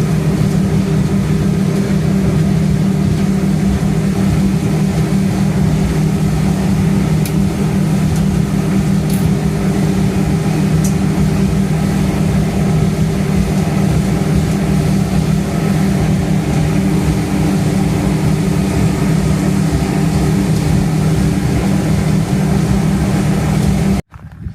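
A boat's twin outboard motors running steadily under way, a constant low engine drone that cuts off suddenly near the end.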